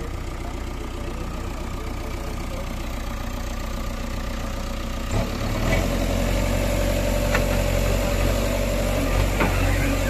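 JCB 3DX backhoe loader's diesel engine idling, then revving up about halfway through, with a steady hydraulic whine as a rear stabiliser leg is lowered onto the ground.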